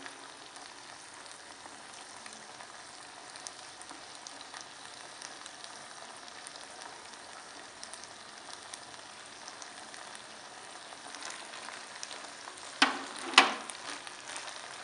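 Chicken macaroni sizzling gently in a pan, with light scrapes and ticks as a silicone spatula stirs it. Two brief, louder sounds come near the end.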